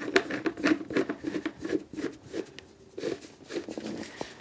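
Irregular scrapes, rustles and light knocks as carpet-covered cat tree parts are handled and a post is twisted onto its bolt.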